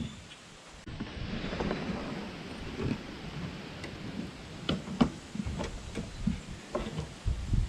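Hands working inside a pickup's door on the door-handle rod linkage: scattered clicks, knocks and rustling of parts and clips being handled.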